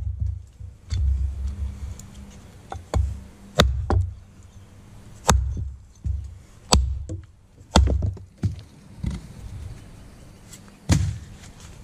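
Wenger Blades Beohawk hatchet chopping through a roughly 4-inch log resting on a wooden stump: a series of about eight sharp blows, one every second or two, each a crack over a dull thud.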